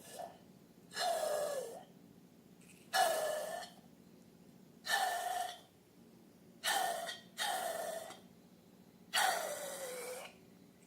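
Air and slime forced out through a balloon's neck in about seven short hissing, sputtering squeals, each sagging in pitch, a second or two apart.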